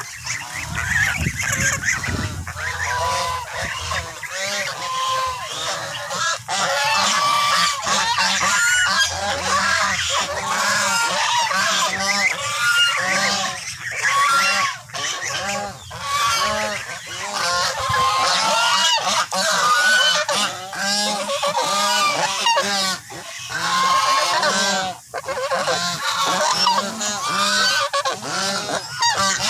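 A flock of white domestic geese honking loudly and almost continuously, many calls overlapping.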